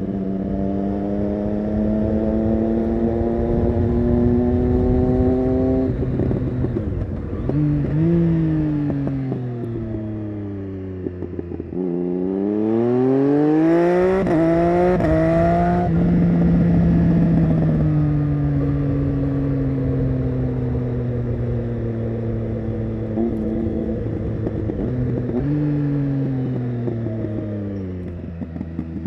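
Triumph Street Triple 675 inline-three with an SC-Project Conic aftermarket exhaust, accelerating and slowing through a series of hairpin turns. Its pitch climbs under throttle and drops at each gear change, falls away as it slows into the turns, and there is a hard climb through the gears about halfway through.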